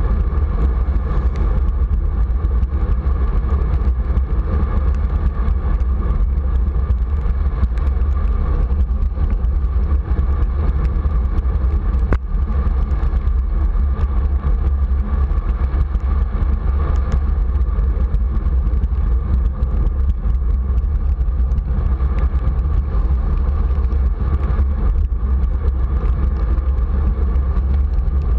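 Steady wind buffeting on the camera microphone from riding in the rain, a heavy low rumble that never lets up, with a faint steady hum underneath.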